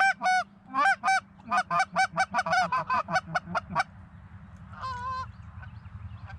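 Goose honks: a quick run of short honks, several a second, that stops about four seconds in, then one flat, held honk about a second later.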